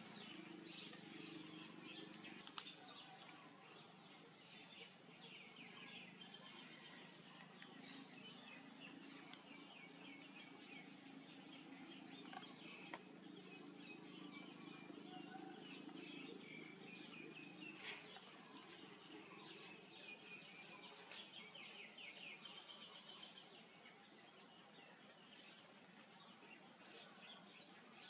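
Faint outdoor ambience: a steady high insect drone with scattered bird chirps.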